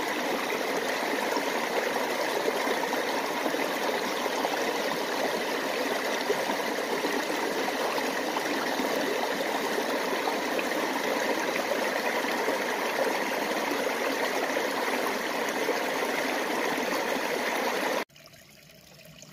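Small rocky mountain creek rushing and splashing steadily over and between boulders. About a second before the end it cuts off suddenly, leaving a much fainter background.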